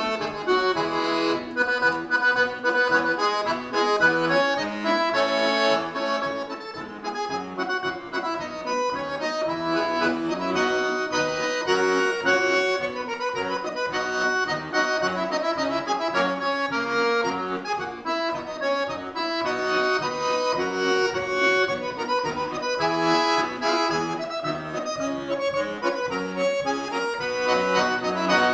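Solo button accordion playing a polka tune, a quick melody over a steady beat of bass notes and chords.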